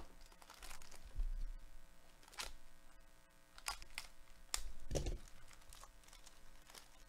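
Foil card-pack wrapper being torn open by hand in nitrile gloves: an irregular series of sharp crinkles and crackles.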